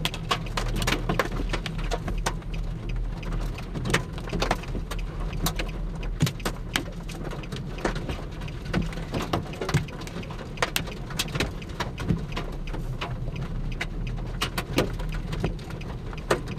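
Raindrops tapping on a car's roof and windshield as irregular sharp ticks, over the car's low steady hum.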